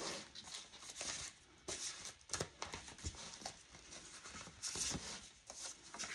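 Quiet rustling and shuffling of paper banknotes and plastic binder sleeves as cash is counted and tucked away, with scattered light taps and clicks on a wooden tabletop.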